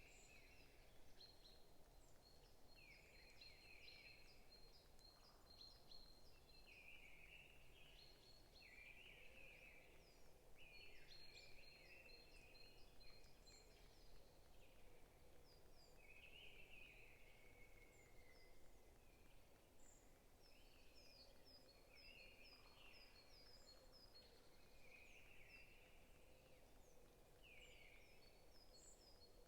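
Faint chorus of several songbirds chirping and calling over a steady low background hiss, with some birds repeating quick runs of short high notes.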